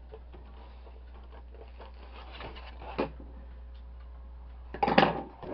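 Cloth being handled at a sewing machine: faint scattered ticks and rustles over a steady low hum, with one small click about three seconds in and a louder brief rustle of fabric near the end.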